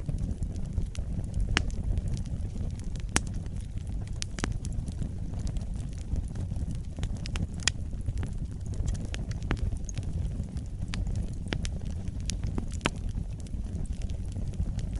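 Wood fire burning in a fireplace: a steady low rumble of flames with irregular sharp crackles and pops, the loudest about three seconds and seven and a half seconds in.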